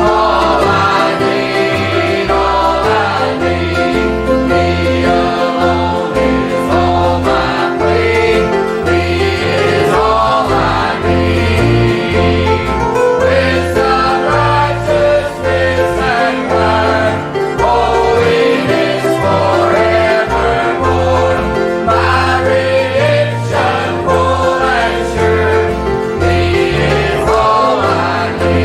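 Congregation or choir singing a gospel hymn with instrumental accompaniment.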